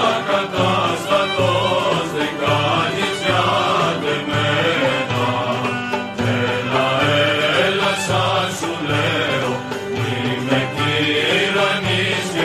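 Traditional Macedonian folk music from lowland Pieria, the local syrtos melody in a seven-beat rhythm: a melodic passage over a repeating low beat.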